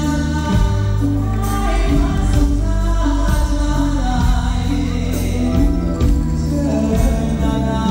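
Live band music played through a stage PA, with a male singer singing into a microphone over a steady drum beat and bass.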